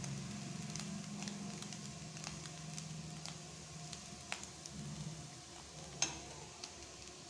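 Fish-roe poriyal frying in a nonstick kadai, sizzling softly while a steel spoon stirs and scrapes through it. The spoon clicks now and then against the pan, with a sharper clack about six seconds in. A low hum sits under the first half.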